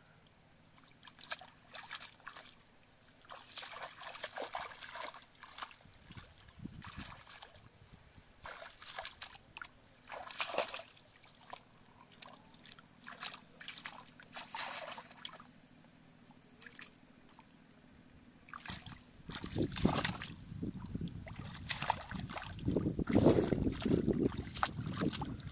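Hands splashing and sloshing in shallow muddy water while groping for fish, with scattered small splashes and trickles that become louder and more continuous in the last several seconds.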